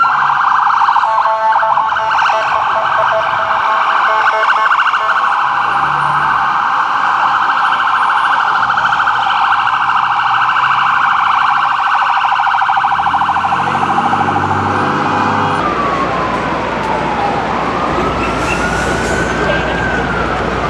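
New York ambulance's electronic siren sounding a fast yelp, switching about three-quarters of the way through to a slower wail that falls, rises and starts to fall again.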